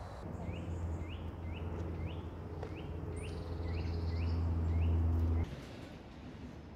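Steady low engine hum, growing louder and then cutting off suddenly about five and a half seconds in. A small bird repeats a short rising chirp about twice a second.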